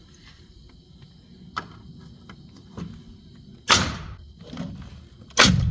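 Nail gun firing twice, about a second and a half apart, each shot a sharp crack with a short hiss, driving nails into the rafter framing. Lighter knocks come before the shots.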